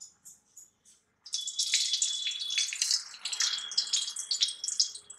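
Ghee sizzling and crackling as it is spooned into hot oil in an iron kadhai, starting about a second in with a dense spitting of small pops.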